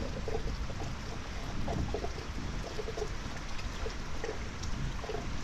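Steady rain falling, with water trickling and dripping.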